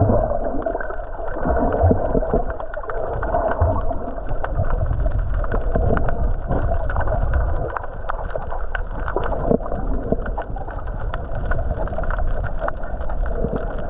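Muffled underwater sound picked up by a submerged camera: a steady low rush of water with many scattered clicks and crackles.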